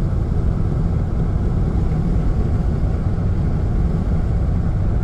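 Steady road and engine noise heard from inside the cabin of a car driving at highway speed, a constant low rumble with no change.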